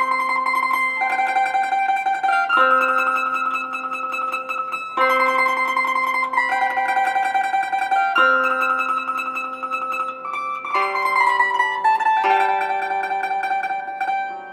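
A plucked string instrument of the mandolin kind plays a folk melody in phrases of held notes. A stepwise descending run comes near the end.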